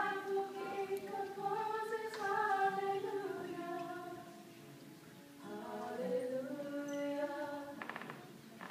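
Young female voices singing a song in long held notes to acoustic guitar, easing off around the middle before the next phrase begins.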